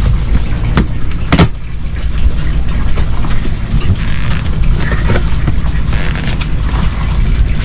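A cardboard shipping box being opened: a sharp knock about a second and a half in, then rustling and scraping of cardboard and packing. A steady low rumble runs under it.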